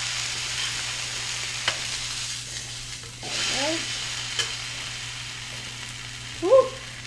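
Corn tortillas dipped in birria consommé sizzling on a hot electric griddle: a steady frying hiss, with a couple of light clicks.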